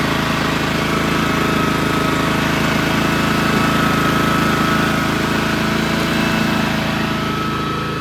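Walk-behind brush mower's gas engine running steadily as the machine is driven through tall grass, easing off slightly near the end.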